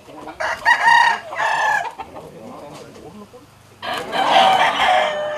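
A rooster crows about half a second in, one long call in two parts. About four seconds in comes a loud burst of noise as two fighting cocks fly at each other.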